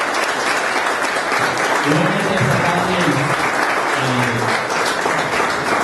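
Audience applauding: sustained clapping from a roomful of people, with music playing underneath.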